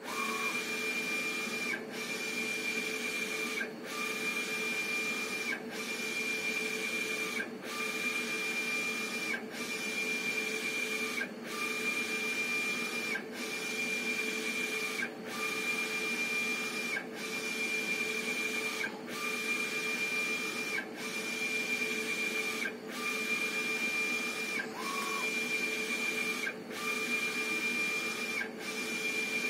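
Epson wide-format inkjet printer printing onto vinyl. The print-head carriage sweeps back and forth with a steady whine that breaks off briefly about every two seconds as it reverses, over a constant low hum of the machine.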